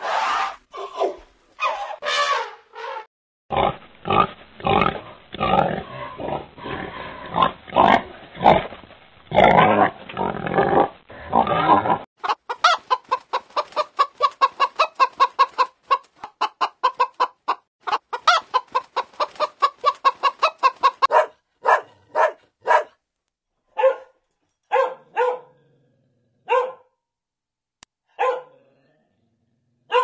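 Chickens clucking, many short calls in quick, even succession for several seconds before thinning to a few single calls. This comes after a stretch of other loud, dense animal calls.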